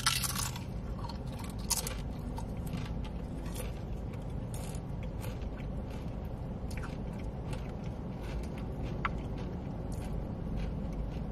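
Close-up chewing and biting of food, with scattered small crunches and wet clicks and a louder bite right at the start.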